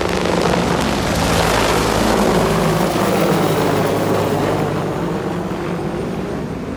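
AH-64 Apache attack helicopter flying low and passing overhead. The rotor and engine noise is loud, swells to a peak about two seconds in, then slowly fades.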